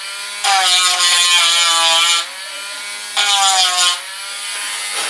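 Dremel Stylus cordless rotary tool with a sanding wheel, pressed twice against putty-filled wood: about half a second to two seconds in, and again just after three seconds. Each time its whine sags in pitch under the load, with a gritty sanding hiss, and in between it runs freely at a softer, steady pitch.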